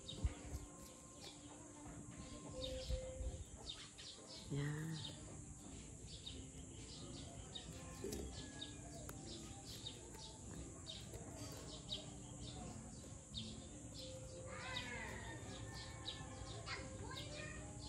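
Birds chirping and calling in the background, a scatter of short high chirps with a longer, bending call about fifteen seconds in, over a steady high-pitched hiss.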